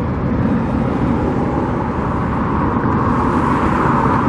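Steady vehicle noise, swelling slightly near the end.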